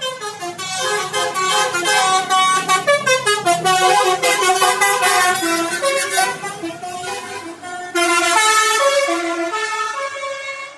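Bus musical multi-tone horn (basuri-style "telolet" horn) playing a quick melody of changing notes, louder from about eight seconds in.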